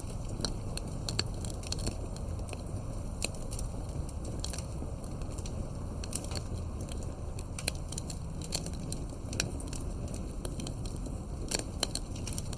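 Campfire crackling: wood burning with a steady low rumble and frequent irregular sharp pops and snaps.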